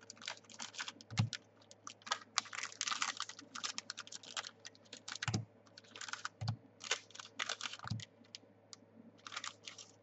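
Trading cards being handled and flicked through by hand: quick runs of light clicks and rustles, with a few soft thumps.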